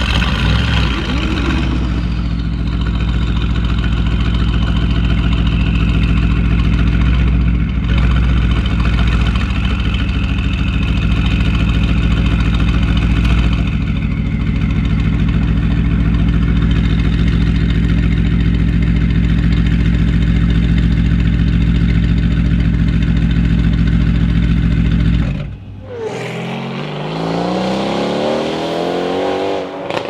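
Mercedes-AMG GT R twin-turbo V8 with an Fi exhaust, idling steadily for most of the time. After a cut near the end, a car accelerates, its engine note climbing several times as it pulls through the gears.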